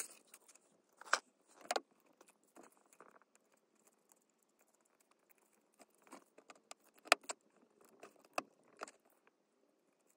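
Small plastic and metal parts of a diecast toy car being handled with a plastic blister pack of spare wheels: scattered clicks and light taps. The sharpest click comes about seven seconds in, after a quiet spell in the middle.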